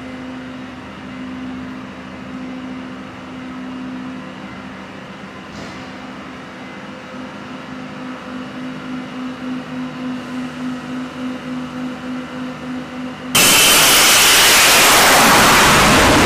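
Steady machinery hum in a ship's hangar bay while an aircraft tow tractor moves an F-35B. Its low tone pulses about twice a second in the second half. Near the end a very loud rushing noise starts abruptly and takes over.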